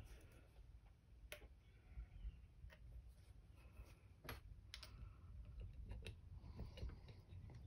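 Faint, scattered clicks and light taps of small hard objects being handled, about one a second, as an airbrush is emptied back into a paint bottle.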